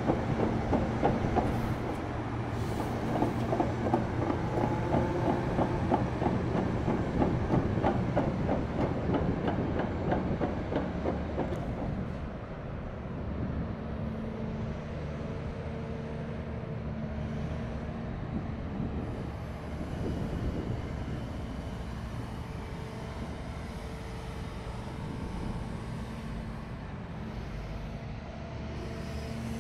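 Kobelco SK380XDLC-10 crawler excavator's steel tracks clanking in a fast, even clatter over its running diesel engine. About twelve seconds in the clatter dies away, and the engine carries on with a steady hum.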